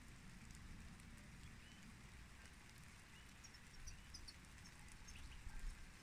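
Faint light rain with scattered drop ticks over a low steady rumble, and a few faint high bird chirps about halfway through.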